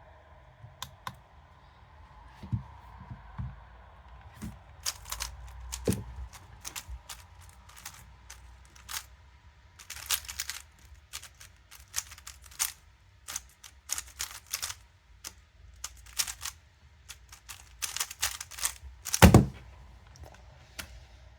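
Lubed Moyu Weilong Ferrocore speed cube being turned fast in a solve: quick runs of sharp plastic clicks as the layers turn, with a loud thump near the end.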